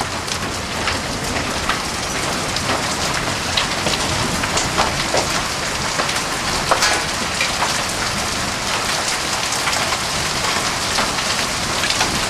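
Hailstorm with rain pelting down: a steady dense hiss with scattered sharp ticks of hailstones striking.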